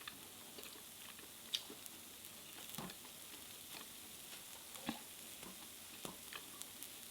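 Faint steady sizzling of takoyaki batter cooking in the takoyaki pan, with a few soft clicks and taps spread through it.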